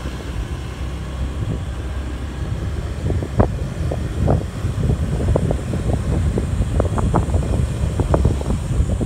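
Wind buffeting the phone's microphone on a moving motorbike, over the low rumble of the ride. Sharper gusts hit the microphone more often from about three seconds in.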